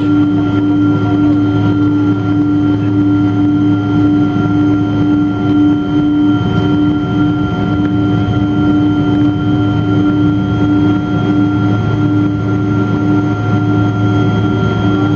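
Boeing 777-200 jet engines and airflow heard from inside the passenger cabin: a steady drone with a constant hum at several fixed pitches, unchanging throughout.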